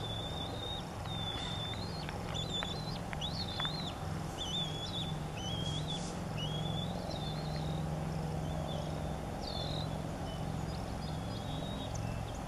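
Young bald eagle giving a long run of short, high, thin whistled calls, each one wavering in pitch, one after another, over a steady low hum.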